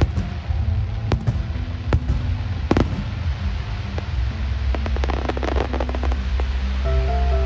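Fireworks display: sharp bangs of shells bursting about a second apart, the loudest a little under three seconds in, then a dense spell of crackling around five to six seconds, over steady background music.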